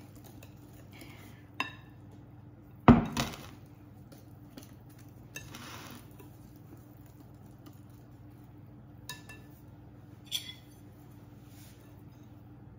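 Kitchen utensils knocking and scraping in a glass mixing bowl of thick batter: a few sharp clinks, the loudest about three seconds in, and a short scrape near the middle.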